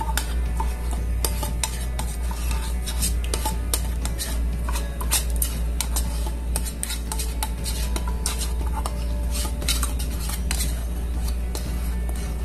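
A metal spoon scrapes and clicks repeatedly inside a tin can of condensed milk, scooping the last of it out into a pot. The clicks come close together throughout, over a steady low hum.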